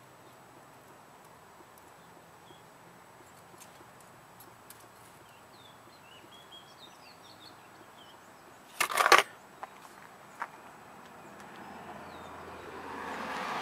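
Quiet outdoor background with faint small-bird chirps. About two-thirds through comes a short, loud clatter followed by two light clicks. A broad rush of noise then swells steadily over the last couple of seconds.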